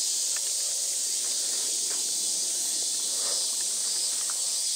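Steady high-pitched chorus of cicadas, an even unbroken hiss, with a few faint ticks.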